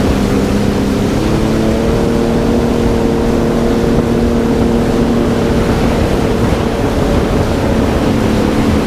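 Jet ski engine running steadily under way, its pitch rising slightly just over a second in and easing back near the end, with wind rumble on the microphone.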